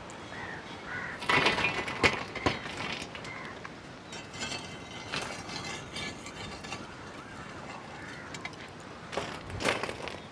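Lumps of hot charcoal shovelled with a metal scoop onto the metal lid of a dough-sealed biryani pot, clattering and clinking in several bursts: embers being laid on top for dum cooking.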